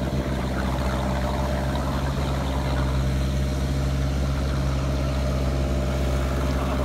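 Off-road 4x4 engine running steadily at low speed, a low, even hum with no revving.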